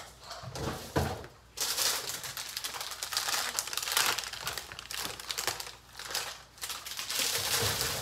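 Plastic produce bag being handled and opened, crinkling continuously, after a couple of knocks in the first second and a half.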